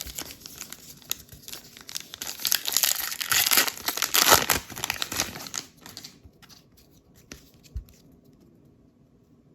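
A baseball card pack's wrapper being torn open and crinkled in the hands, loudest about three to four seconds in, followed by a few light clicks as the cards are handled.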